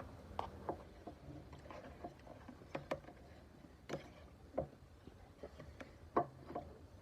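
People eating: irregular chewing and mouth smacks with small clicks, over a low steady background hum.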